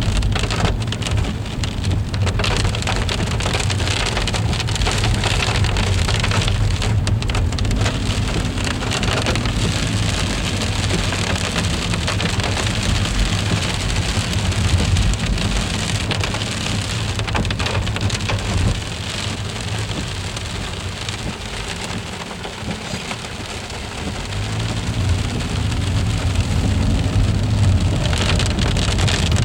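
Freezing rain of an ice storm falling and pattering steadily on surfaces, over a constant low rumble. The sound eases a little for a few seconds past the middle, then comes back up.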